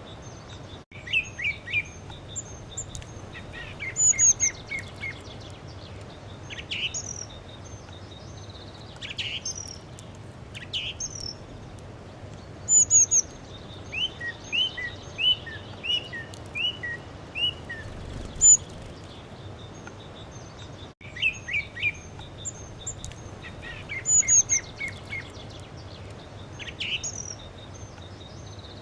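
A small songbird singing: short high chirps and quick trills in phrases every second or two, over a steady background hiss.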